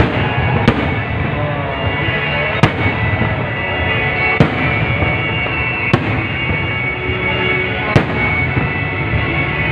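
Aerial fireworks shells bursting overhead: about six sharp bangs, one every second or two, over a steady background din.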